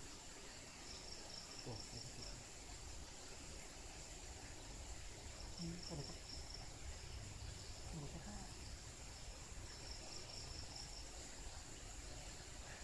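Forest insects chirring: a steady high-pitched drone, with a second insect trilling in three bursts of a second or so each.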